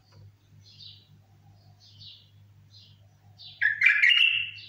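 Bulbul singing: soft short chirps about once a second, then a loud burst of whistled notes near the end. A steady low hum runs underneath.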